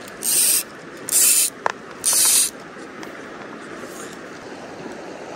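Three short hisses of fly line running through a fly rod's guides, about a second apart, over the steady rush of a small stream.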